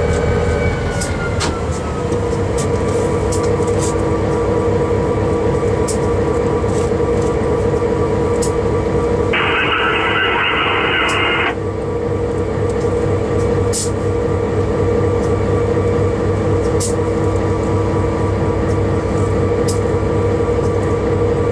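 Diesel locomotive engine running steadily as heard in the cab, its note dropping about a second in as the throttle is eased. About nine seconds in, the cab radio gives a two-second burst of static that cuts off sharply.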